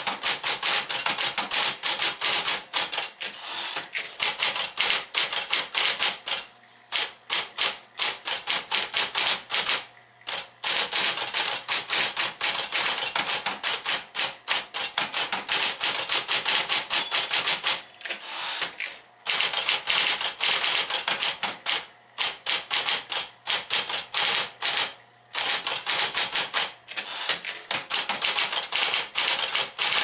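Sears Tower Electric typewriter, built on Smith-Corona 5TE-series electric works, typing in quick runs of keystrokes with a few brief pauses between bursts.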